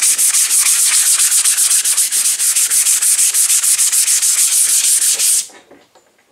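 Hand sanding with 180-grit sandpaper on primed fiberglass: fast, even back-and-forth strokes that scuff the primer so the next coat of primer will grip. The sanding stops suddenly about five and a half seconds in.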